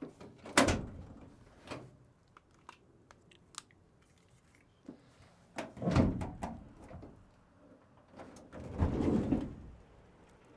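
A van's doors being worked: a sharp bang about half a second in, small clicks and knocks, then two heavier low thuds around six and nine seconds.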